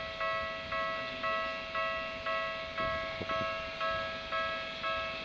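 Japanese railway level-crossing warning bell ringing, a clanging electronic bell tone repeated evenly about twice a second, each strike dying away.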